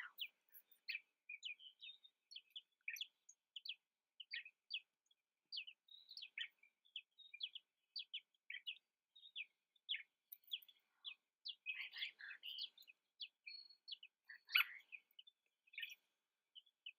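Small birds chirping: a steady run of short, high chirps, several a second, with a few brief clusters of louder chirps in the second half.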